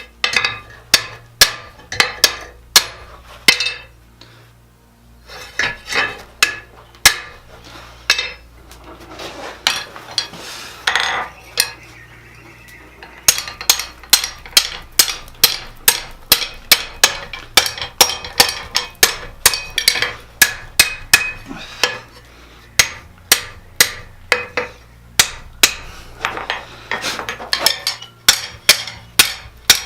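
Blacksmith's hammer striking steel on an anvil, in quick runs of ringing blows, about two to three a second, broken by short pauses.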